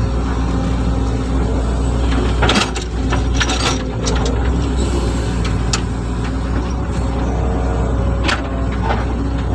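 Hitachi hydraulic excavator's diesel engine running steadily under work, with scattered sharp metallic clanks, the loudest cluster about two and a half to four seconds in.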